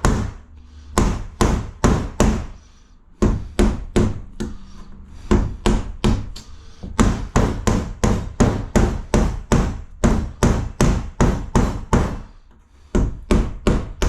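Hammer striking repeatedly, about two to three blows a second, fixing a cement sheet to timber wall framing. The blows come in runs, with brief pauses about three seconds in and near the end.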